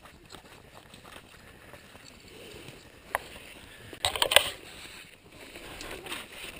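Rustling and handling noise as a mushroom picker moves over the forest floor through leafy undergrowth: a sharp click about three seconds in, then a loud brief burst of brushing and crackling about four seconds in, followed by lighter rustling.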